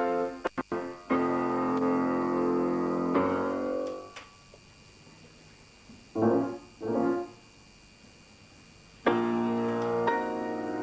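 Keyboard instrument played solo: a held chord that dies away about four seconds in, a pause broken by two short soft sounds, then playing resumes with a firm chord about nine seconds in. Brief sound dropouts just after the start.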